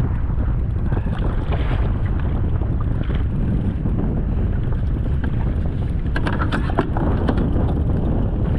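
Wind buffeting the microphone in a heavy, steady rumble over choppy sea. A quick run of sharp clicks comes about six seconds in.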